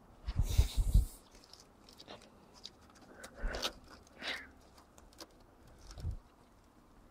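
Handling noises: a burst of rustling with several dull knocks about half a second in, then a few scattered clicks and rustles, and a single low thump about six seconds in.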